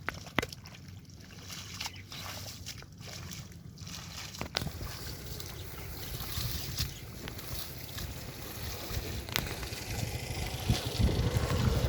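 Water sloshing and trickling, with a few sharp knocks, and wind buffeting the microphone that grows louder near the end.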